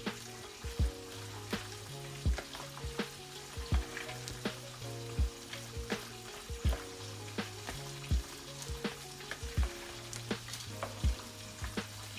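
Chicken frying in hot oil with a steady sizzle, under background music with a steady thumping beat of about three strikes every two seconds.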